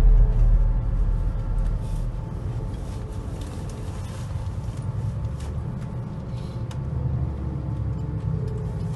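Steady low rumble of a bus engine and road noise heard from inside the cabin, with background music fading out in the first couple of seconds.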